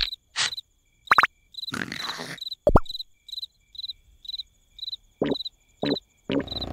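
Cricket chirping at a steady pace, about two short high chirps a second, as night-time ambience. A few brief, sudden cartoon noises come in between.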